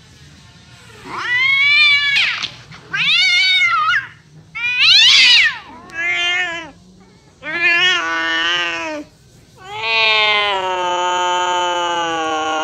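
A black cat yowling in a series of six drawn-out meows. The first calls rise and fall in pitch, and the last is a long, steady yowl of about three seconds.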